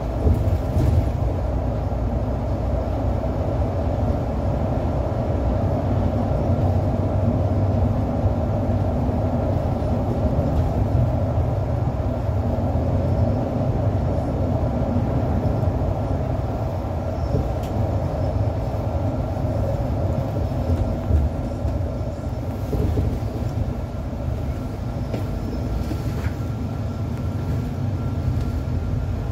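Cabin noise of a Mercedes-Benz city bus under way: a steady engine and road rumble with no pauses, heard from just behind the windscreen.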